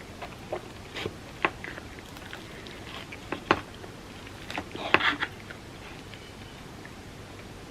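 Close-miked eating sounds from a dessert mukbang: scattered sharp clicks and crackles of chewing and biting, with a louder cluster about five seconds in, then quiet.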